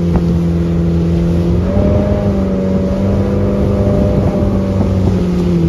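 Motorboat engine running under load while towing an inflatable tube, with a steady hum that climbs in pitch about a second and a half in as the boat speeds up, then drops off near the end as it eases back.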